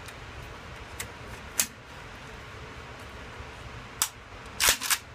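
AK-47 rifle being loaded and readied by hand: sharp metallic clacks of the magazine and action, one loud clack about a second and a half in and a quick cluster of clacks near the end, over a steady low hum.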